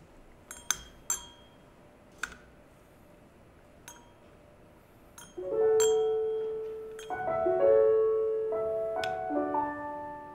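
A few light metallic clinks in the first half, from a metal candle snuffer touching the altar candlesticks; from about halfway a slow piano postlude plays sustained notes, the loudest sound.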